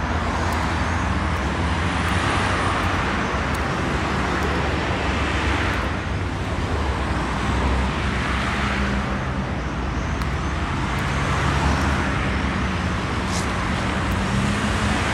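Road traffic on a multi-lane city street: cars passing one after another, their tyre and engine noise swelling and fading in turn over a steady hum.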